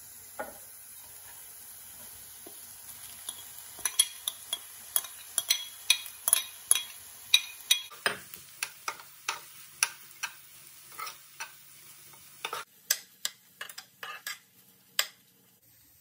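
Cooked rice being stirred into sautéed onions and peppers in a nonstick saucepan with a spoon: sharp clicks and scrapes of the spoon against the pan, about two a second, from about four seconds in until near the end, over a faint steady sizzle.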